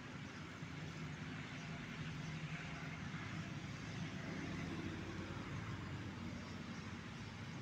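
Steady low rumble of distant road traffic, swelling slightly a few seconds in.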